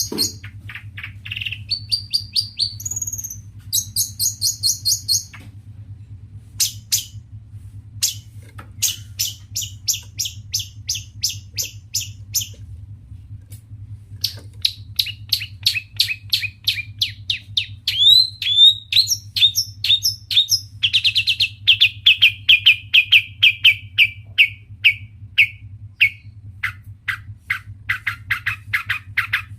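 Long-tailed shrike (cendet) singing a busy, chattering song: runs of sharp, high repeated notes at about four a second, broken by short pauses, with a few gliding notes about two-thirds of the way through. A steady low hum runs underneath.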